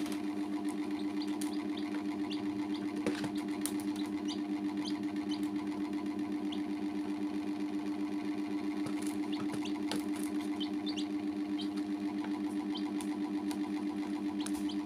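Domestic chicks peeping, many short high chirps scattered throughout, over a loud steady low hum that throbs about four times a second.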